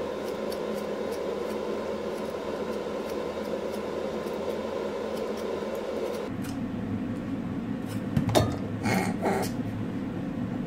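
Faint scraping strokes of a vegetable peeler taking the skin off a pear, over a steady background hum. The hum changes character about six seconds in, and a few sharp clicks come around eight to nine seconds in.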